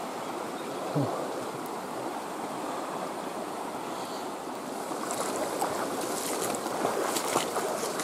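Shallow mountain creek running over rocks, a steady rush of water. About a second in there is a brief low falling note, and sharp clicks come and go in the last few seconds.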